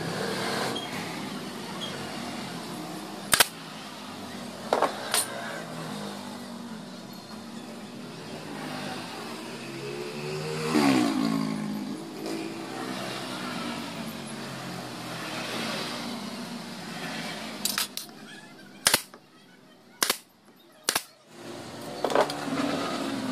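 Sharp knocks of wood and a steel square being set down and handled on a plywood saw-guide jig: one about three seconds in, two near five seconds, and a quick cluster in the last few seconds. Behind them runs a steady background hum, with a vehicle passing by about halfway through, its pitch sliding as it goes.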